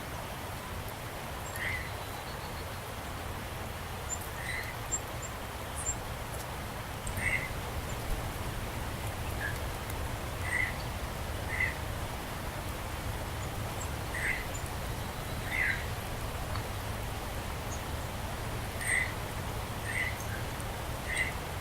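A bird giving short calls over and over, about one every one to two seconds, with faint high chips and a low steady rumble behind.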